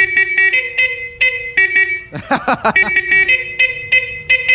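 Pair of Bosch high- and low-tone electric horns tapped out in a quick rhythmic tune, short honks switching between the higher and lower tone, with a brief break about two seconds in.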